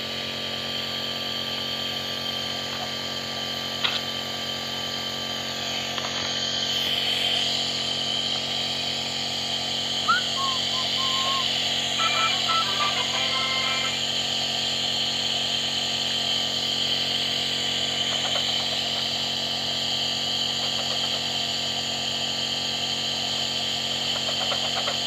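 Compressor nebulizer running: a steady motor hum with a hiss of air. Two sharp clicks, about four and ten seconds in, and a few short faint squeaky tones around the middle.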